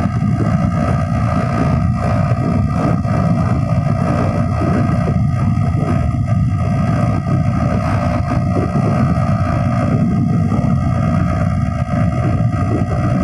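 Yamaha RX135 two-stroke single-cylinder engine running steadily while cruising, with wind buffeting the microphone.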